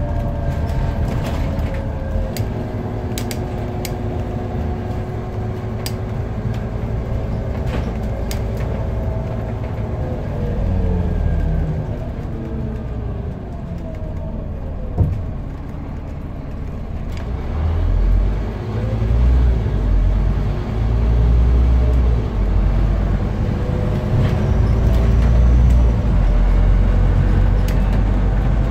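Scania CN230UB single-deck bus heard from inside the saloon while it drives: the engine and drivetrain whine falls as the bus slows about a third of the way in, a single sharp knock sounds near the middle, then the engine pitch climbs and its low rumble grows louder as the bus pulls away. Light interior rattles are heard over the engine, mostly in the first third.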